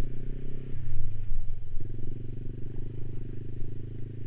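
Yamaha 155 cc single-cylinder scooter engine running under way over a rough gravel track. The engine note eases off under a second in and comes back sharply a little under two seconds in, as the throttle is closed and reopened.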